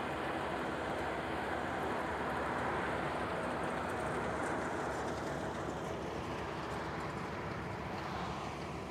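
John Deere compact tractor's diesel engine running steadily as it pulls a Seedavator slit aerator-seeder through Bermuda turf, easing slightly near the end.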